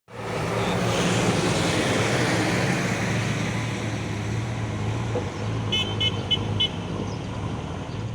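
Road traffic passing close by: an engine hums steadily under tyre noise, likely from a truck. About six seconds in, a vehicle horn gives four quick, short high-pitched toots.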